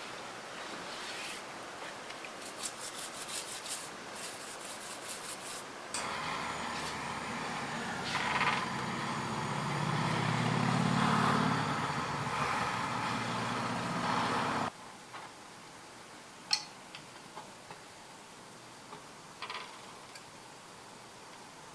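Stiff plastic-bristle brush scrubbing rusty steel steelyard parts in a tub of liquid, in quick scratchy strokes with water swishing. Then a louder steady rushing noise with a low rumble for several seconds, which cuts off suddenly. Last comes a quieter stretch with a few light metal clinks as the small hook pieces are set down in a shallow metal pan.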